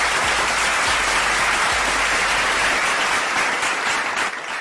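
Applause sound effect from a soundboard: a crowd clapping steadily, fading out near the end.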